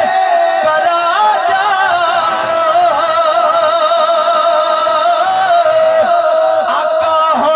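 A man's voice singing a naat, holding long notes with wavering, ornamented turns in the melody. The voice is amplified through a microphone and PA loudspeaker.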